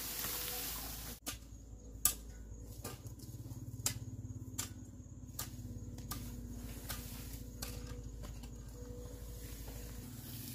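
Dry grass and brush rustling as they are pulled from a pile, then a long-handled garden tool scraping dry ground in short repeated strokes, roughly one a second, over a low steady hum.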